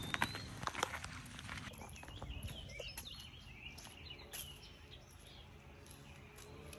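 Faint outdoor ambience with a few short bird chirps and scattered light clicks. A faint low steady hum comes in during the second half.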